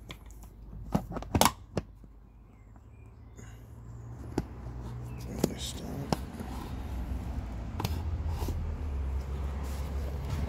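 Camera and tripod being handled and set down: a few sharp knocks about a second in, then scattered clicks over a low rumble that grows louder from about the middle.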